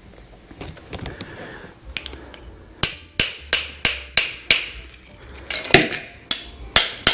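Large ice cube being cracked by hand: a run of sharp taps of a small hand-held tool against the cube, about three a second, starting a little under three seconds in, with a brief pause and then a harder knock near six seconds.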